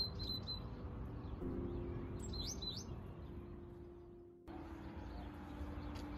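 Small birds chirping, a few short high calls near the start and again about two and a half seconds in, over soft background music with long held notes.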